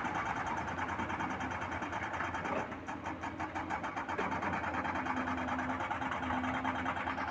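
Construction machine's engine running steadily with a fast, even chatter; it dips briefly about two and a half seconds in, then carries on.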